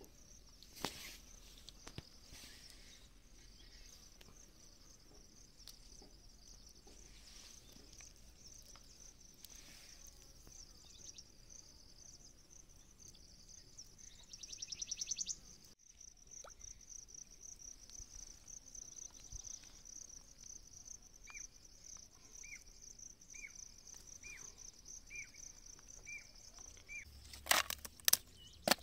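Insects trilling steadily in a high, pulsing buzz that swells for a moment about halfway through. In the later part a short high chirp repeats about once a second, seven times, and a few sharp knocks near the end are the loudest sounds.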